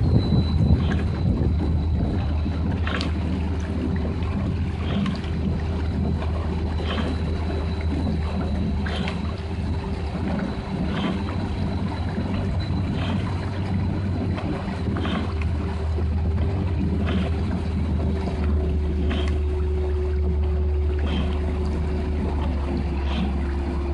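Outboard motor of a boat pacing the rowers, running steadily with a constant hum and water rushing past. A light tick comes about every two seconds.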